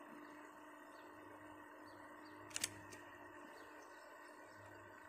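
Near-silent waterside ambience: a faint steady hiss with a few soft chirps, broken about halfway through by two sharp clicks in quick succession and a lighter tick just after.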